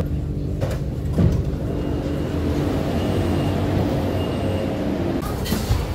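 Steady rumble and low hum of a metro train and its station, with a couple of sharp clicks about a second in.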